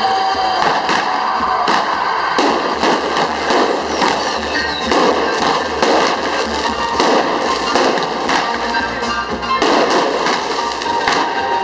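Aerial fireworks bursting in a steady string of bangs, about two a second, over music.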